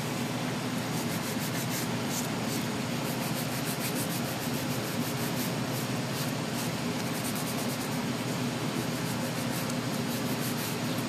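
Nail file rubbing over acrylic nails in quick, repeated strokes, shaping the nails.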